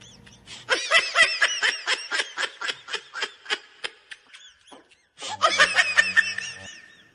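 High-pitched laughter in rapid pulses, two bouts with a brief pause between them.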